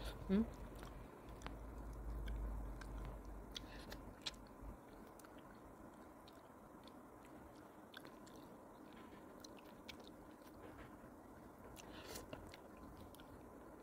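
Close-up mouth sounds of eating a tilapia head by hand: quiet chewing, sucking and small crunches and clicks of fish bone scattered throughout. A low rumble underneath stops about five seconds in.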